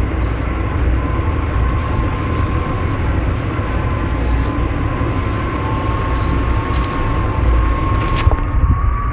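Strong wind rushing and buffeting with a heavy low rumble and a thin steady whistle, the sound of wind forcing through a door gap. A few short, high bird chirps cut through it, three of them in the second half.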